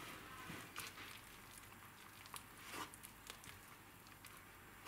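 Faint, soft squishing and rustling of a hand working wet flour into dough in a wooden bowl, with a few quiet pats spread through.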